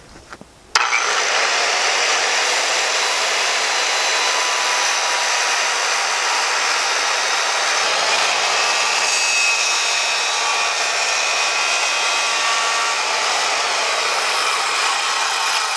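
Corded Milwaukee 7¼-inch circular saw starting up suddenly about a second in, then ripping a wooden board lengthwise along its edge guide with a steady, loud cutting noise.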